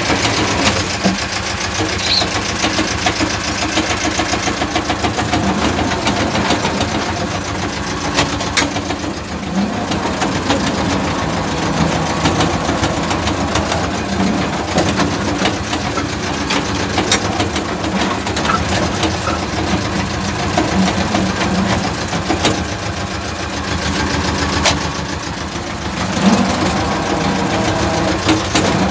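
Tractor diesel engine running steadily as it pulls a potato ridger along the rows, heard from inside the cab with a fast, even clatter.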